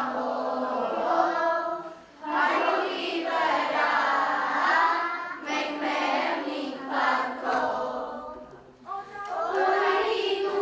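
A group of children singing together as a choir, in long phrases with short breaks between them, about two seconds in and again near the end.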